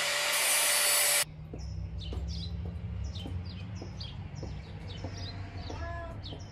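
A loud steady hiss cuts off sharply about a second in. After it, small birds chirp in quick, short, falling calls, about three a second, over a low hum.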